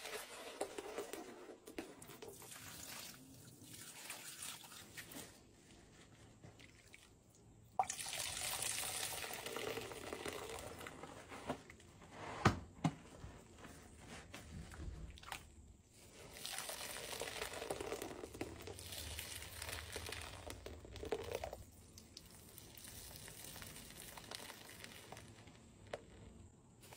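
A soapy, saturated sponge being squeezed in gloved hands and dunked in a sink of sudsy water, in several rounds. Each squeeze gives a squelch as water and foam pour and drip back into the sink. A single sharp knock comes about halfway through.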